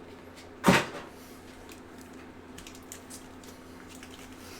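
Trading card box packaging being opened: one short, sharp tear or crinkle about a second in, then faint ticks and rustles of handling.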